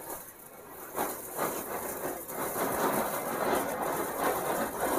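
Supreme Spectra Green anar (flower-pot fountain firework) spraying sparks with a steady hiss and crackle. It grows louder about a second in.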